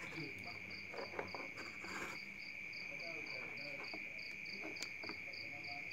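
Crickets chirping: a steady high trill with a faster pulsing chirp over it, about five pulses a second. A few faint clicks come from wires being handled.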